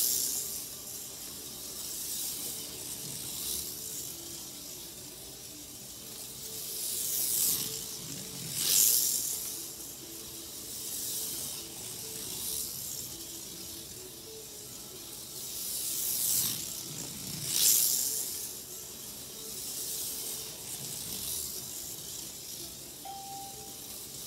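HO-scale Johnny Lightning Thunderjet 500 slot car running laps: a hissing, high-pitched whir from its small electric motor and pickup shoes on the rails. The sound swells loud as the car passes near, in quick pairs about every nine seconds, and there is a short beep near the end.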